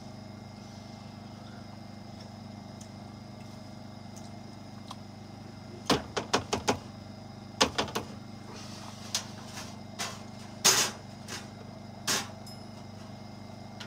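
Utensils clinking and knocking against a pan and plate while food is dished out: a quick run of sharp clinks about six seconds in, another group near eight seconds, then scattered knocks, the loudest near eleven seconds. A steady low hum runs underneath.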